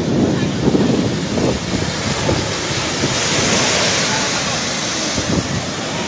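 Storm waves breaking over a seafront breakwater and washing across a flooded road, a steady rush of surf with wind buffeting the microphone.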